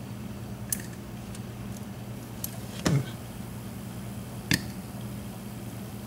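A few small sharp metallic clicks and one duller knock as the tiny driver pins and brass body of a tubular cam lock are handled and set down on a workbench, over a steady low hum.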